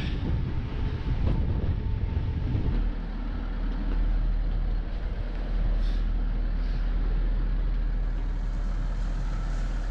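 Steady low rumble aboard a sailing yacht under way, without clear changes.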